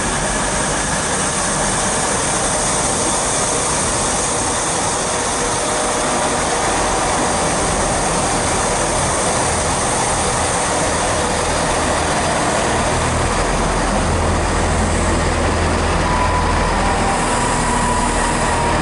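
Class 166 Turbo diesel multiple unit running into the platform and passing close by, with a steady rumble of its underfloor diesel engines and wheels. A deeper engine drone strengthens about two-thirds of the way through, and a thin whine joins near the end.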